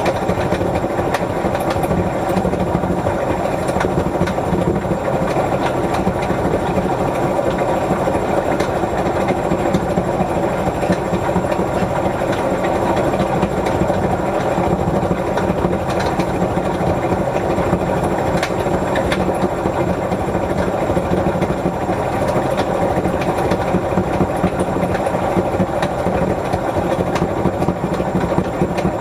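Whirlpool washing machine running a 60 °C cotton wash cycle: a steady mechanical running sound with scattered light clicks.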